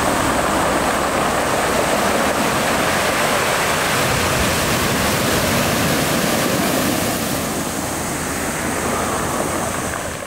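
Steady rushing of sea surf, easing a little near the end.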